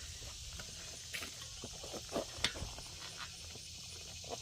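Scattered light clicks and rustles of things being handled, with a steady high chirring of insects behind.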